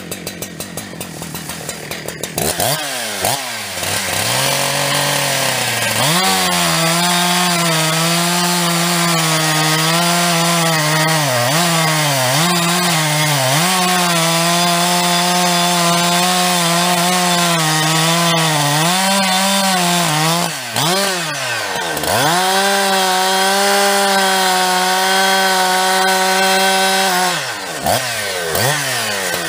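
Huztl/Farmertec Husqvarna 372-clone two-stroke chainsaw idling, then revved up about two seconds in and held at full throttle while cutting into the base of a standing tree, its pitch dipping and recovering as it bogs under load. It drops off and revs up again briefly around twenty seconds in, and falls back toward idle near the end.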